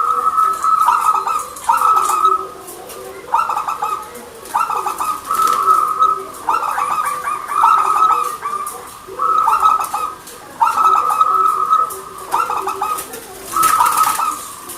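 Zebra dove (perkutut) cooing in repeated, rapidly trilled phrases, each about a second long with short pauses between them.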